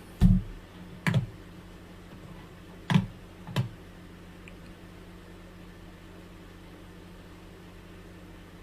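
Four short, sharp knocks close to the microphone, in two pairs within the first four seconds, typical of handling noise, followed by a steady low hum.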